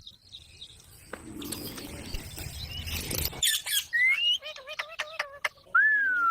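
Pet parrot calling: after a stretch of noise, a series of short chirps and rising whistles in the second half, ending on a longer whistle that dips and rises again.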